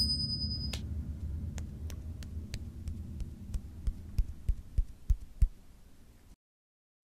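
A low hum fading away under a steady run of sharp ticks, about three a second, that turn into heavier knocks near the end before all sound cuts out.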